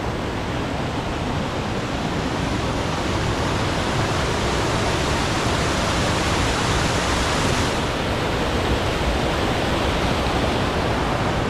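Waterfalls on Stickle Ghyll, a mountain stream swollen by heavy rain, rushing steadily: a constant, loud roar of falling water close by.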